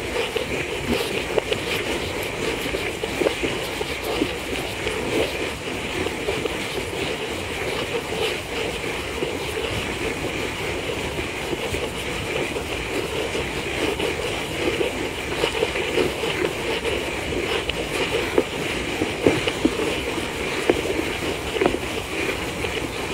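Steady rumbling, rattling noise with many light irregular clicks.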